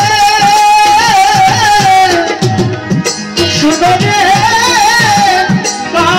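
Live band playing a Bengali folk song: a long, wavering melody line over steady tabla beats, with keyboard accompaniment.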